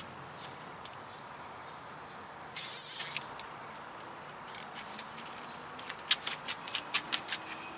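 Nylon zip ties being cinched: one quick, loud ratcheting zip about two and a half seconds in, then a run of about eight separate ratchet clicks near the end as a tie is pulled tight.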